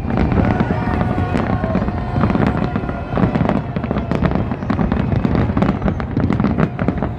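Fireworks salute: a dense, continuous barrage of shells bursting, booms and crackles overlapping with no break.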